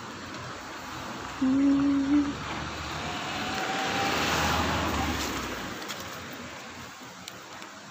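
A motor vehicle passes close by, its engine noise swelling to a peak about four and a half seconds in and then fading. A short, steady low tone sounds briefly about a second and a half in.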